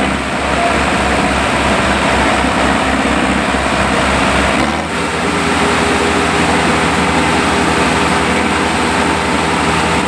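Modified Sonalika tractor's diesel engine running hard, with a second tractor's engine behind it. A deep rhythmic throb changes to a steadier, higher note about halfway through.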